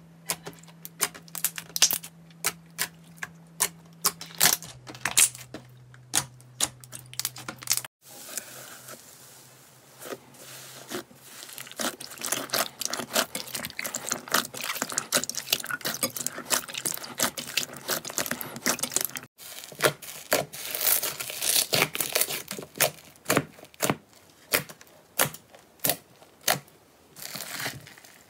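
Slime being pressed, squished and kneaded by hand: a series of sharp pops and clicks, with a denser crackling stretch in the middle and evenly spaced pops near the end.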